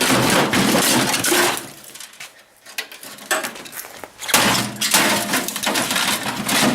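Clattering and cracking of metal and plastic parts as a microwave oven is broken apart for scrap. The clatter pauses for a couple of seconds in the middle, with only a few clicks, then resumes.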